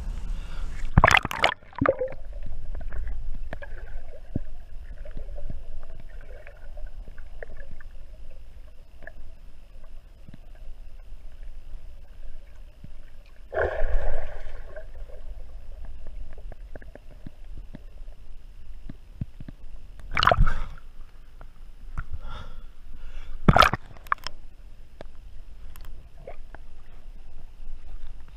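Water gurgling and sloshing around a swimming diver, heard underwater and muffled, with four sudden loud knocks or splashes: about a second in, one lasting about a second near the middle, and two in the last third.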